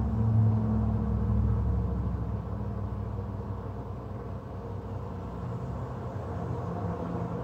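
Low steady mechanical rumble with a faint hum, a little louder in the first second or two and then easing off slightly.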